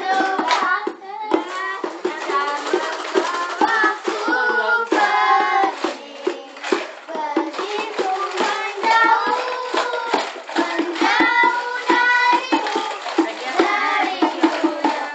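Children singing a pop ballad together, street-busker style, with hand taps on a small drum keeping time.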